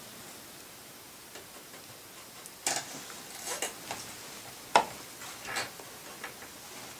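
A paintbrush working on watercolour paper: a few light, scattered taps and short scratchy strokes, the sharpest click a little past halfway.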